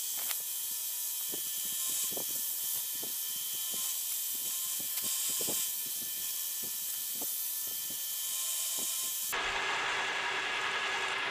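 Milling machine taking a slot cut in a metal block with an end mill: a steady high-pitched hiss with a faint whine, scattered with irregular light clicks. About nine seconds in the sound changes abruptly to a duller, lower noise.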